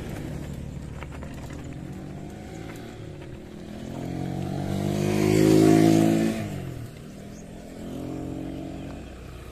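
A motor vehicle passes close by. Its engine grows louder, is loudest about six seconds in, then drops in pitch and fades as it moves away. A fainter engine follows shortly after.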